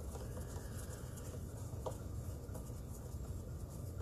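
Hand screwdriver turning a screw into the plastic back casing of an iRobot Braava Jet m6 mop robot: faint scratching and rubbing with scattered small clicks, one a little sharper a little under two seconds in.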